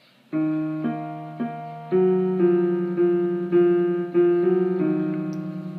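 Piano music on a keyboard: notes and chords struck about twice a second, each one fading, the low notes with a slight waver. It starts about a third of a second in.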